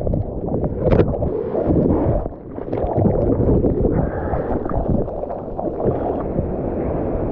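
Sea water sloshing and splashing, with wind buffeting the microphone in uneven gusts and a few sharp splashes.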